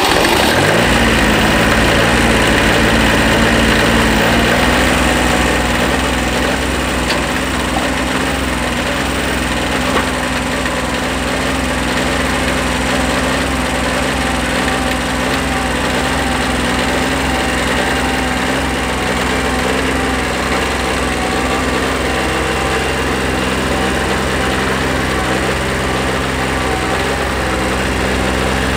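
Kubota B7100 compact tractor's small three-cylinder diesel engine running just after starting. It settles to a steady speed in the first second and then runs evenly.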